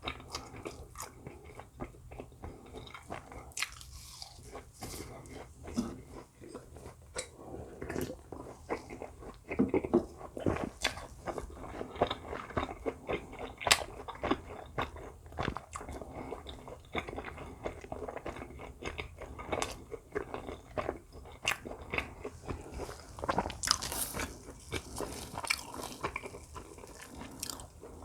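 A person eating close to the microphone: bites and chewing with crisp, crunchy snaps, many irregular sharp clicks a second.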